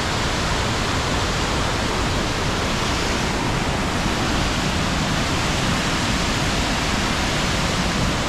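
Krka waterfall's water pouring down, heard close as a loud, steady rush of noise with no change.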